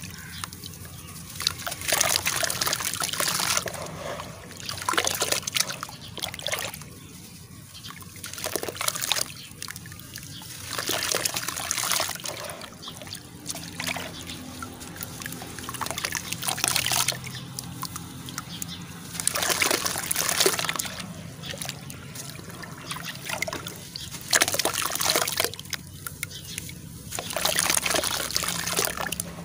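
Soaked charcoal chunks squeezed and crumbled by hand in a tub of water: sloshing, dribbling and splashing mixed with soft gritty crumbling. It comes in repeated bursts a few seconds apart, with quieter trickling between them.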